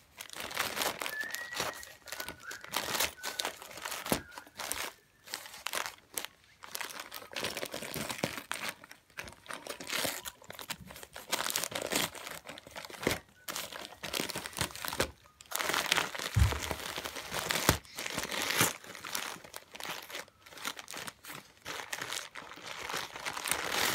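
A Great Dane tearing at Christmas wrapping paper with his mouth and paws: irregular bursts of crinkling, rustling and ripping paper.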